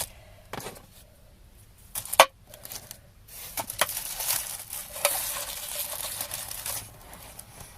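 Individually wrapped Quality Street chocolates being handled, their clear cellophane and foil wrappers crinkling, with a few sharp clicks. The loudest click comes about two seconds in, and a longer spell of crinkling follows from about three seconds in.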